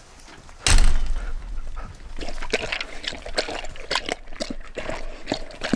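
Siberian husky eating chopped meat from a steel bowl: quick, wet chewing and lapping smacks. A loud thump comes just under a second in.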